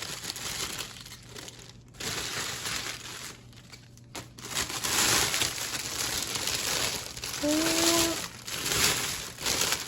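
Plastic wrapping crinkling and rustling in bursts as a gift basket is unwrapped and handled.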